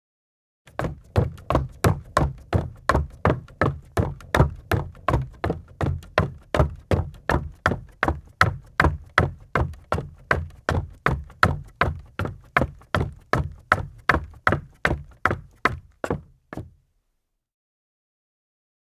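Footsteps in rubber deck boots, walking at a steady pace of about two steps a second, each step a sharp knock with a heavy low thud. The steps stop about three-quarters of the way through.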